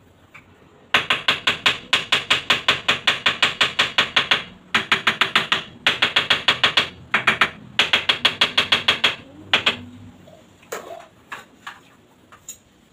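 Rapid, even tapping on a freshly set wall tile, about six taps a second in several runs with short pauses, bedding it into the adhesive; a few scattered knocks near the end.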